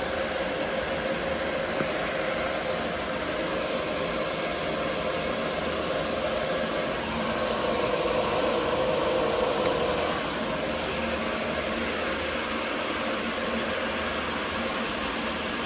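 Cooling fans of running GPU mining rigs and their server power supplies: a steady whir with a faint whine. It swells a little for a few seconds midway.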